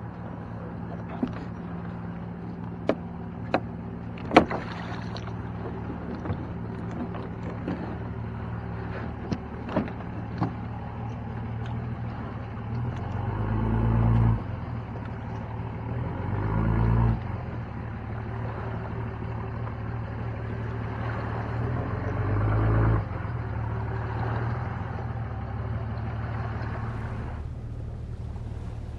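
A boat's motor running steadily with a low hum. Sharp knocks sound about ten times in the first half. Three times in the second half, a low surge builds for a second or two and then cuts off sharply.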